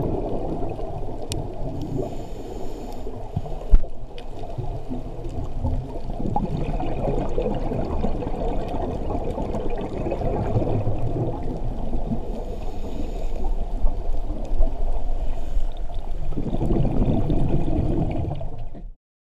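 Underwater sound through a camera housing: a steady low rumble and gurgling of water, with a scuba regulator's breath hissing twice, a few seconds in and again past the middle, and a burst of exhaled bubbles near the end. A single sharp knock about four seconds in is the loudest sound. The sound cuts off just before the end.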